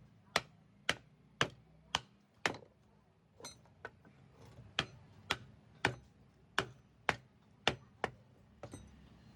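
Hammer blows on metal pump parts, steady strikes about two a second, each with a short ring, lighter for a moment a few seconds in, then resuming.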